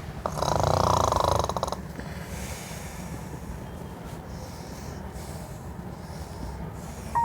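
A person snoring: one loud, rough snore starting about half a second in and lasting over a second, then quieter low breathing noise.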